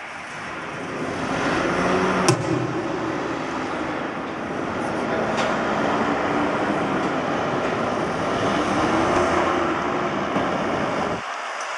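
Engine of a high-wire stunt motorcycle running as it rides along a wire overhead, its pitch rising and falling. A single sharp click about two seconds in.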